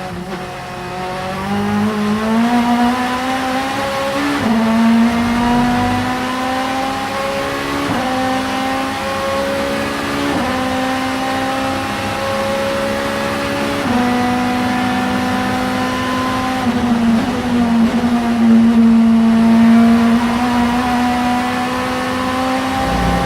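Vauxhall Vectra supertouring race car's two-litre four-cylinder engine pulling hard through the gears: the pitch climbs steadily and drops suddenly at each upshift, four times, then holds at fairly steady revs.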